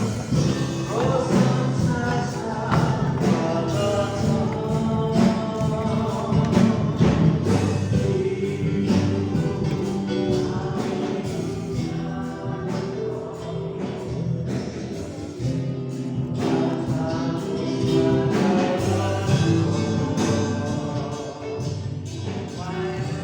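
Christian gospel song with singing voices over instruments and a steady beat.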